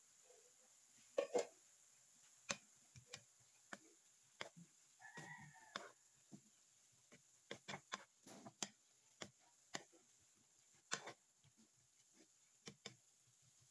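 Wooden spatula knocking and scraping against a nonstick frying pan while vegetables are stirred and tossed, a run of short irregular clicks, the loudest a little over a second in. A short pitched call sounds in the background about five seconds in.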